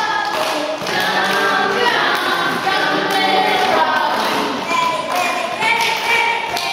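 A group of young boys singing a song together without accompaniment, with a few hand claps.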